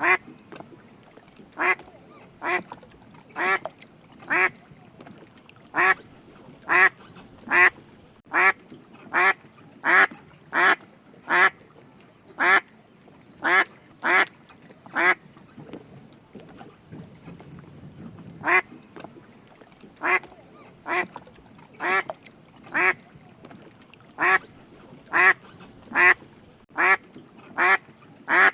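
A duck quacking over and over: short single quacks, roughly one every half second to a second, in runs broken by brief pauses.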